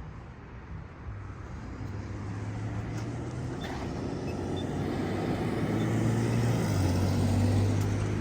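Road traffic at an intersection: a vehicle's engine hum and tyre noise growing louder toward the end as it comes close. Under it, a faint tick about once a second from the pedestrian signal's push-button locator tone.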